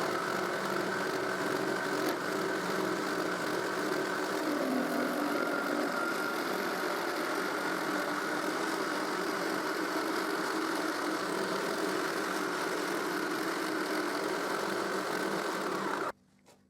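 Jigsaw mounted under a homemade jigsaw table running steadily while it cuts a groove in the crosscut sled's base, then switched off suddenly near the end.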